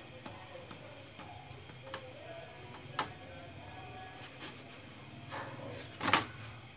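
Slotted spatula clicking and scraping against a flat tawa griddle while a paratha cooks, a few sharp taps spread through. The loudest clatter comes about six seconds in, as the paratha is flipped over on the griddle.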